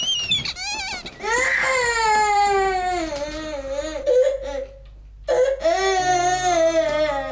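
A squeaky rubber duck toy squeaks as a bare foot steps on it, then a baby starts crying: two long wavering wails, each falling in pitch, with a short breath between them.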